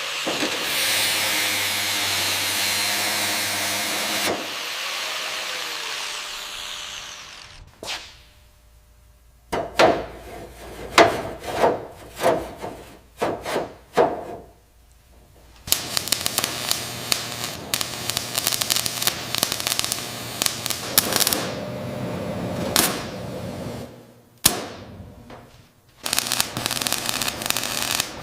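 Workshop tool sounds in separate takes: a loud hiss fading away over the first several seconds, then a run of about seven short scraping strokes, then a power tool running with a rapid buzz, stopping, and starting again near the end.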